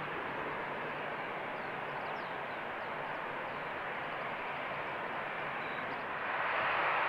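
Four-engined Airbus A380 jet airliner at takeoff power as it lifts off and climbs away, a steady broad engine rush. A few faint high chirps sit over it, and about six seconds in the sound grows louder and hissier.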